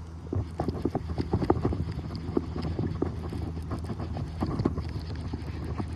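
Irregular light clicks and knocks, several a second, from fishing tackle and the reel being handled in a kayak, over a steady low hum.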